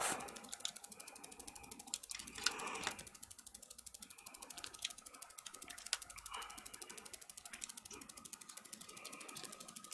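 Faint, rapid, even ticking, with a few light knocks and scrapes as a laptop logic board is handled and slid across a silicone repair mat.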